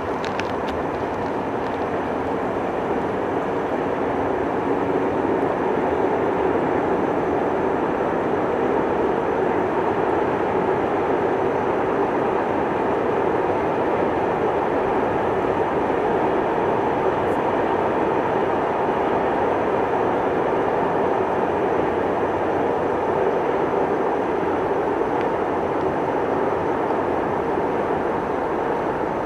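Electric freight train running on the Gotthard line: a steady rumble of wheels and wagons on the rails, swelling slightly in the first few seconds and then holding steady.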